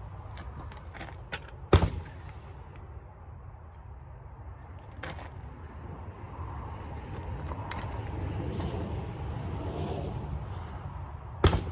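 Two sharp gunshots from other shooters on the range, about ten seconds apart, over a steady low rumble.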